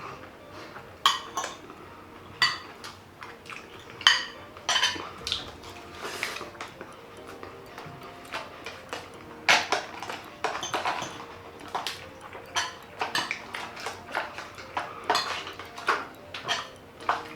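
Cutlery clinking and scraping against dishes during a meal: irregular sharp clinks, a few loud ones among many lighter taps.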